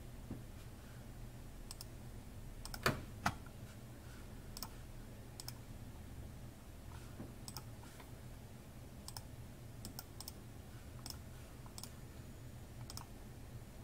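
Scattered clicks of a computer mouse, a few every couple of seconds, over a faint low hum; two louder knocks about three seconds in.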